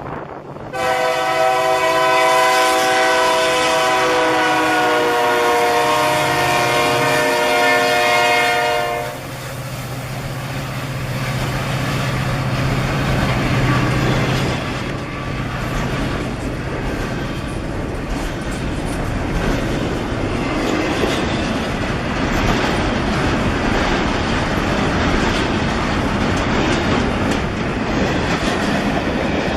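Indiana Rail Road EMD SD90/43MAC diesel locomotive sounding its multi-note air horn for about eight seconds, the chord sagging slightly in pitch near the end, over the low drone of its engine. After the horn stops, the engine drone fades and the rumble and clatter of the passing train cars take over.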